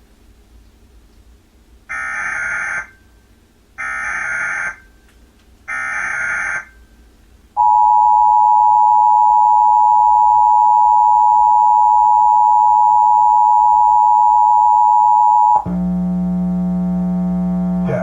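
Emergency Alert System required monthly test: three short bursts of SAME header data tones about two seconds apart, then the two-tone attention signal held steady for about eight seconds. It cuts off abruptly into a steady low buzz.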